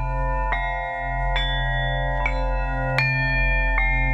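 Tibetan singing bowls struck one after another with a mallet, about five strikes, each ringing on in several overlapping tones, over a steady low hum.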